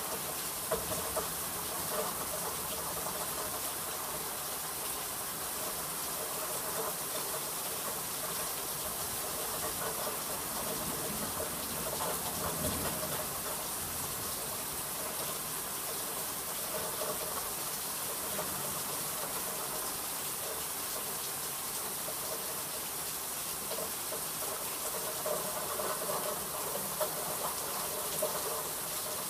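Steady rain falling in a thunderstorm: an even hiss with a few sharper taps.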